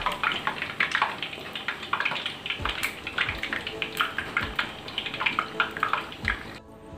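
Pempek kapal selam (egg-filled sago-and-flour dough) deep-frying in hot oil in a nonstick frying pan: steady sizzling with dense crackling pops. The sizzling cuts off abruptly near the end.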